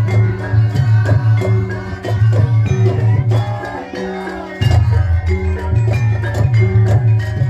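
Javanese gamelan music for a mask dance: struck metallophones ring out melodic notes over drum strokes and a pulsing deep bass tone. The bass drops out briefly about four seconds in, then returns.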